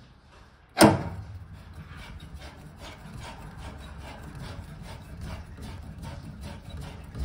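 Copper pipe being cut with a clamp-on pipe slice (mini rotary pipe cutter) turned by hand round the pipe, making a steady rhythmic rasping. A sharp knock about a second in is the loudest sound.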